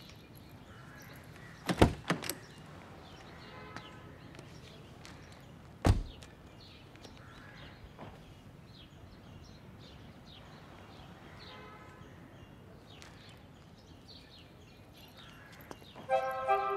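Heavy thumps of a car door being shut: a quick cluster of two or three about two seconds in and a single one about six seconds in, over a faint, quiet background. Music starts near the end.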